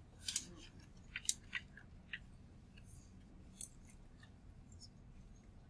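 Stylus tapping and scratching on a touchscreen as handwriting is written: a cluster of sharp clicks in the first two seconds, another click about three and a half seconds in, then a few faint ticks.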